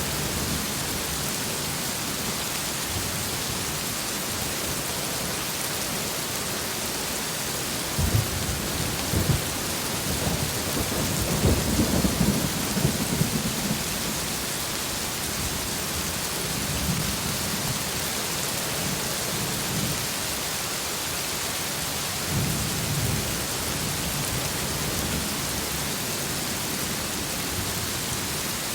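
Steady heavy rain, with thunder that cracks about eight seconds in and rumbles on for several seconds, and a shorter roll of thunder later.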